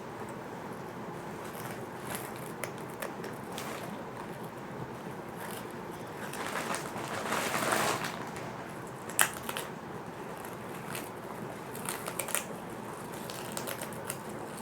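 Crisp fish crackers being crunched and chewed, with scattered sharp crackles, a louder crunching, rustling stretch about halfway through and one sharp crack soon after.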